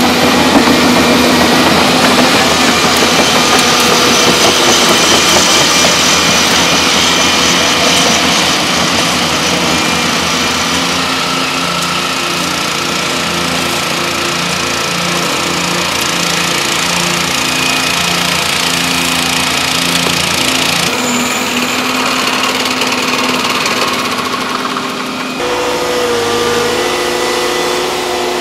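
Diesel engines of Volvo excavators running steadily at work. The sound changes abruptly about 25 seconds in, with a new steady tone.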